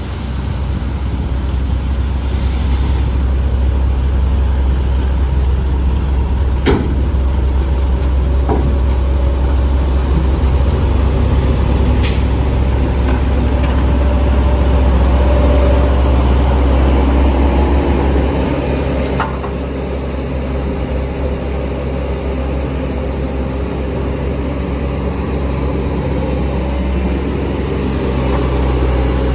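Heavy diesel machinery running steadily with a deep engine drone, broken by three short sharp sounds spread through it.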